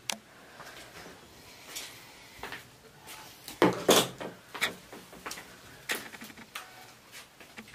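A person moving about in a small room: scattered light knocks and clicks with faint rustling, the sounds of footsteps and handling things.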